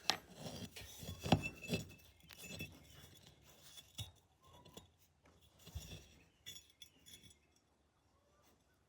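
Small steel parts of a shotgun action clinking and tapping as they are handled, a string of light clicks and clinks that come thick at first and thin out after a few seconds.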